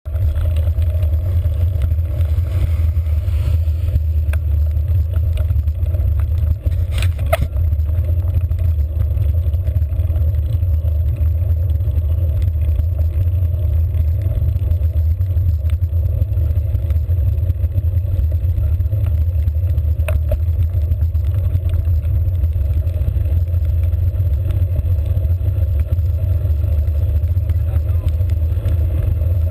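Wind and road noise on the microphone of a handlebar-mounted GoPro on a moving bicycle: a steady low rumble, with two brief clicks about seven and twenty seconds in.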